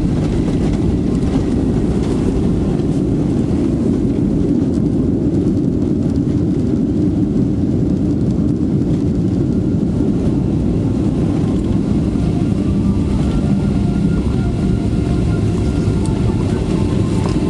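Cabin noise of a Boeing 737-400 on its landing rollout: a loud, steady low rumble of the CFM56 jet engines and wheels on the runway as the airliner brakes hard with spoilers up on a short runway. A faint whine comes in during the last few seconds.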